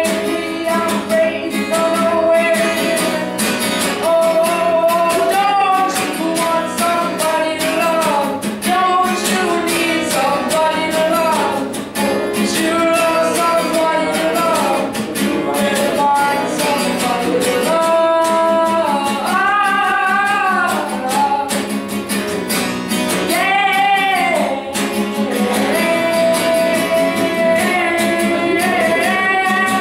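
Acoustic guitar strummed and picked in a steady, driving rhythm, with a voice singing long notes that bend and waver over it.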